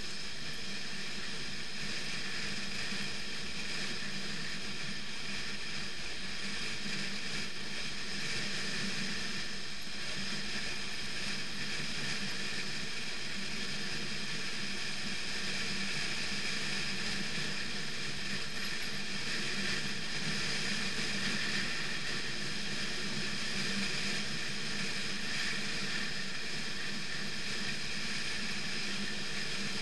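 BMW F 650 GS motorcycle engine running at a steady, even speed while riding on a dirt road, with a constant rush of road and wind noise underneath.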